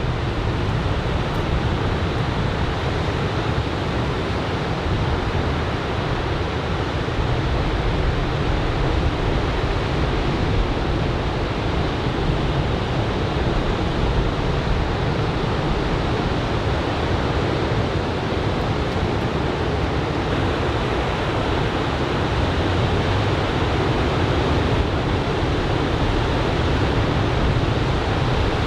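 Surf from a typhoon swell breaking on a sand beach: a steady, unbroken wash of wave noise.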